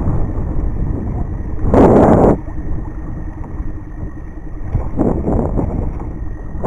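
Wind rumbling on the microphone, with a short, loud rushing burst about two seconds in and a few weaker ones near the end.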